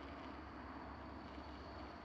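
Small radio-controlled crawler's electric motor and gearbox running, a faint steady high whine over a low hiss.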